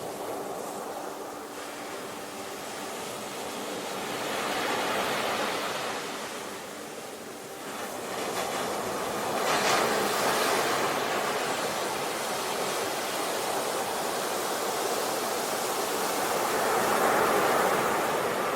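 Sea waves washing in and receding in slow swells, a rushing surf noise that rises and falls, loudest about five, ten and seventeen seconds in.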